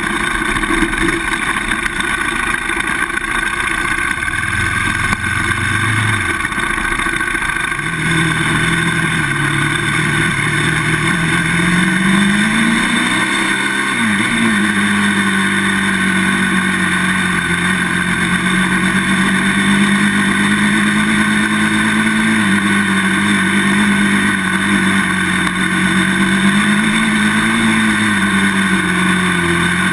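Polaris Outlaw 525 quad's KTM single-cylinder four-stroke engine running under way at speed, over a steady rush of wind and trail noise. A little before halfway the engine note climbs, then drops sharply, and afterwards holds fairly steady with small rises and falls.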